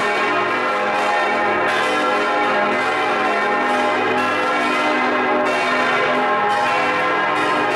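Large church bell, the great bell tuned to A-flat and cast by Eschmann, swinging and ringing close up in the belfry, with a fresh stroke every second or two over a dense, continuous ringing.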